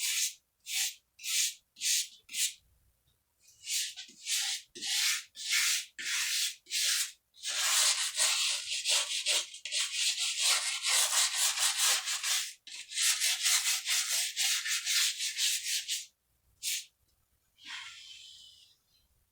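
Small wire brush scrubbing back and forth over a foam and plaster surface, roughening it so the road material will bond. It goes in separate strokes about two a second, speeds up into a rapid continuous scrub in the middle, then slows back to strokes and stops about sixteen seconds in, with a couple of last strokes after.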